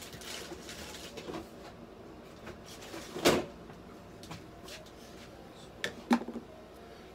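A few sharp knocks of things being handled in a small room: one loud knock about three seconds in and two more in quick succession about six seconds in.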